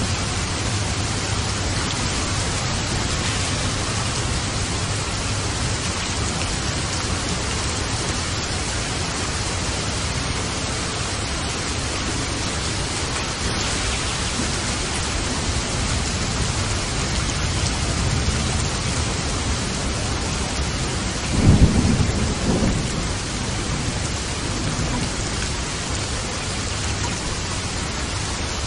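Steady, heavy rain in a thunderstorm, with low rumbling throughout and a short, louder rumble of thunder about three-quarters of the way through.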